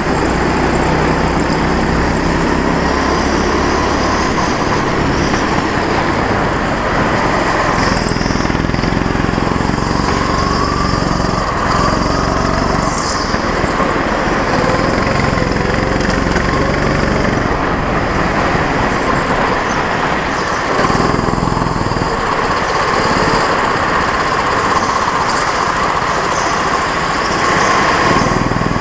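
A go-kart's engine running under way, its pitch rising and falling with the throttle through the corners of a lap.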